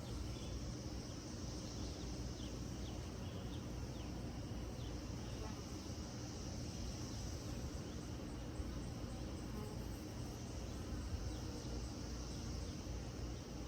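Insects trilling outdoors: a steady high-pitched chorus that swells and fades, over a steady low rumble. A few short, quick downward chirps come in the first few seconds.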